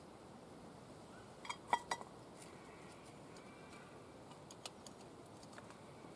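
A quick cluster of ringing clinks about one and a half seconds in, a steel camp mug knocking against a French press, then a few lighter clicks as the press is handled.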